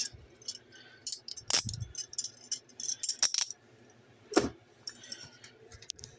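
Metal handcuffs clinking and rattling as they are handled and set down: a string of sharp, separate clinks, loudest about a second and a half in, with more around three seconds and four and a half seconds.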